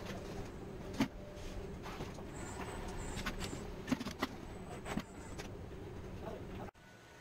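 Car assembly-line machinery: a steady mechanical hum with scattered sharp metallic clicks and clanks, and a run of short, high-pitched beeps about a third of the way in. The sound cuts off abruptly near the end.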